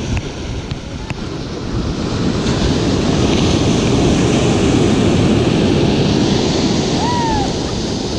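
Ocean surf breaking and washing up a sandy beach, a steady rush that swells louder from about two seconds in and eases near the end, with wind buffeting the microphone.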